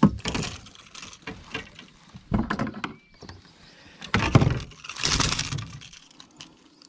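Several short bursts of clattering and knocking as a peacock bass held on a lip gripper is unhooked with pliers over a plastic kayak: the hooked lure, the metal tools and the fish rattling and bumping against the gear.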